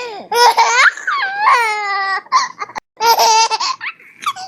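A baby laughing in several high-pitched bursts of squeals and giggles, with short breaks between them.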